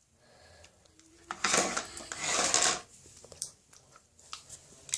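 Hands squishing and stretching soft lotion slime: a stretch of sticky, crackly noise about a second in, then scattered small clicks and pops.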